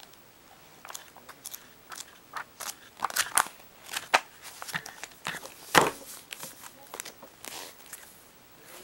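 Glossy magazine pages flipping and rustling as magazines are handled and moved, a string of sharp paper crackles with a louder slap about six seconds in.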